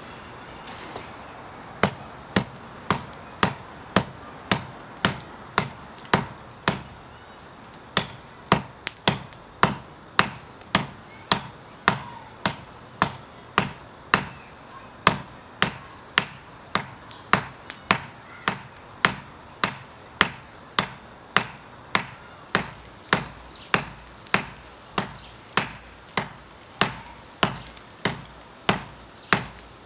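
Hand hammer forging red-hot coil-spring steel on a steel block anvil, each blow ringing. The blows come at about two a second, with a brief pause early on before a steady run.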